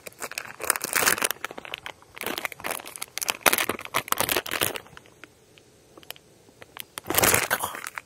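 Plastic packaging crinkling and rustling in irregular bursts as a soft plastic worm is changed by hand, with a louder burst of crinkling near the end.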